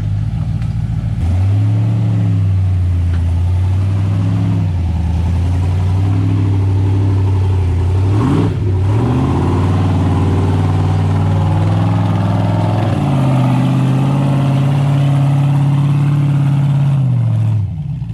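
Jeep engine revving under load while crawling off-road, its pitch rising and falling repeatedly. A sudden dip and swoop comes about halfway through, then the revs are held high for several seconds before dropping off near the end.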